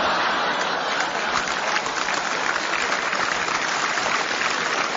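Large theatre audience applauding, a steady dense clapping.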